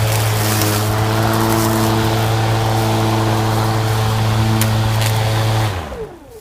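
EGO 56V battery-electric lawn mower running at full speed, a steady motor hum with the rushing noise of the spinning blade and a few sharp ticks of debris. About five and a half seconds in it is switched off and the motor and blade wind down with a falling pitch.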